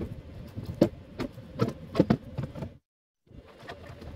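Scattered clicks and light knocks of hands working among a truck's stripped dashboard wiring and metal dash frame, over a faint steady hum; the sound cuts out completely for a moment a little before three seconds in, then the clicking resumes.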